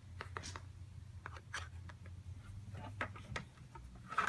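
Small plastic toy stool being handled and taken out of its packaging: scattered light clicks and taps, a few in quick succession about three seconds in.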